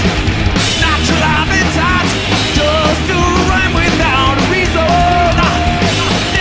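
Live heavy metal band playing: distorted electric guitars, bass and drums, with a male lead vocal sung into the microphone.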